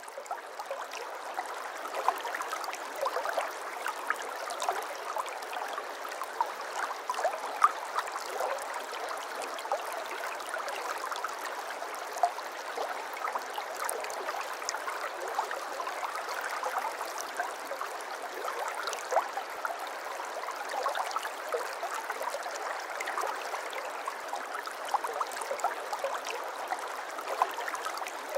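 Small stream babbling steadily, a dense run of little splashes and gurgles.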